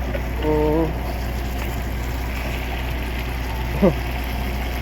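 Steady low rumble of an idling truck engine, with a short voiced hum about half a second in and a brief squeak near the end.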